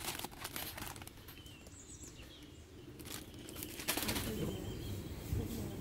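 Crinkly plastic instant-noodle packets rustling as they are handled and put into a wire shopping trolley, in short bursts at the start, around three seconds in and around four seconds in.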